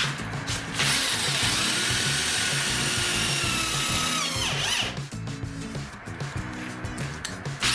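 Parkside PSBM 500 C4 corded drill boring into concrete in plain rotary mode, without the hammer action: the motor spins up about a second in, runs steadily, then winds down after about four and a half seconds. Background music with a steady beat plays throughout.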